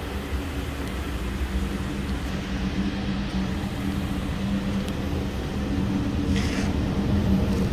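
2012 Suzuki SX4's 2.0-litre four-cylinder engine idling steadily, getting louder as the exhaust at the rear is approached.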